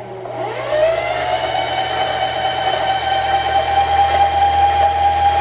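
Singer Heavy Duty sewing machine's motor spinning up with a rising whine in the first second, then running at a steady high speed.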